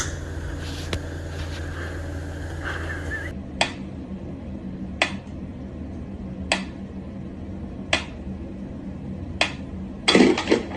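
A steady low hum for the first three seconds, then five sharp knocks evenly spaced about a second and a half apart, and a quick cluster of louder knocks near the end.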